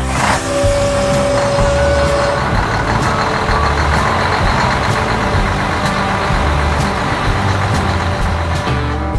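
Loud, steady vehicle machinery noise from a farm-machine sound effect, with a held tone for about two seconds near the start and background music faintly underneath.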